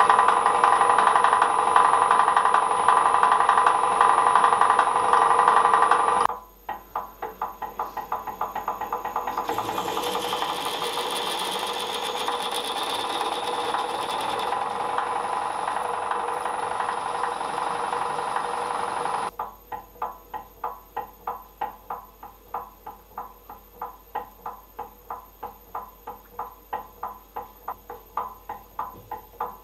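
Drilling machine running while a center drill and then a twist drill cut holes in a small steel block clamped in a machine vise. The sound changes abruptly twice, and from about two-thirds through it becomes a regular rapid pulsing of about three strokes a second.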